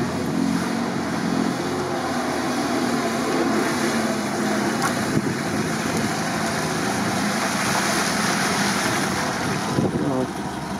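Nearly stock UAZ-469's engine running under load as it drives through a flooded, muddy track, with water splashing and sloshing around its wheels.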